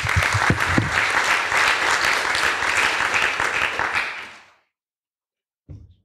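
Lecture-hall audience applauding, a dense steady clapping that fades away about four and a half seconds in, leaving a second of dead silence.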